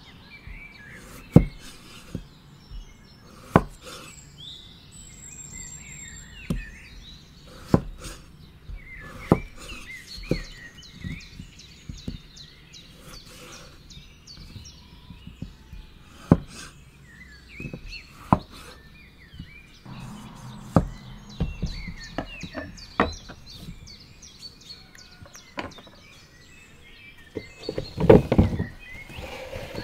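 A knife chopping potatoes on a thick wooden chopping board, with a sharp knock every second or two, and small birds chirping in the background. Near the end the cut pieces tumble off the board into a plastic bowl in a short clatter.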